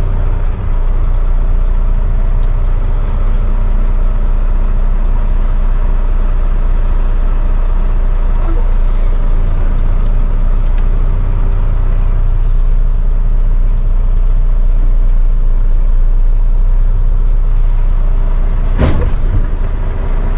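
Semi truck's diesel engine running at low speed, heard from inside the cab, as the truck reverses a trailer into a dock. A short, sharp burst of noise comes near the end.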